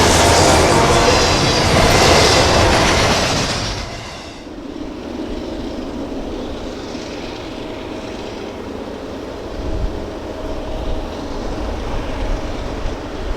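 Freight train on the move: a loud rush and clatter of steel wheels on rail for about four seconds, then an abrupt drop to a quieter, steady rumble.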